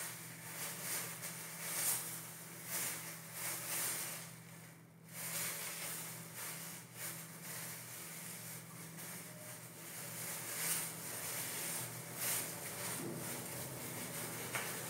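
Disposable plastic gloves crinkling and rustling in short, uneven strokes as the hands work hair dye through the hair, over a steady low hum.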